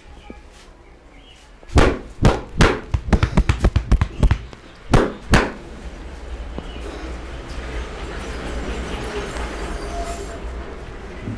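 Massage percussion: hands slapping and tapping a customer's body. There are three spaced slaps, then a quick run of about eight taps, then two more slaps. After that a steady background noise builds.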